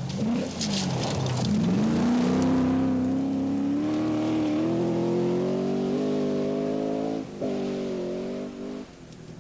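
Triumph TR7 V8 rally car's engine at full throttle on loose gravel. After a brief blip and a short crackle early on, the pitch climbs in steps as it pulls away, with a quick gear change about seven seconds in and a drop as the throttle is lifted near the end.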